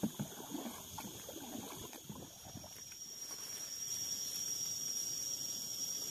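Paddle strokes and water splashing against a wooden canoe, irregular and uneven. About three seconds in, a steady high-pitched insect drone takes over and grows louder.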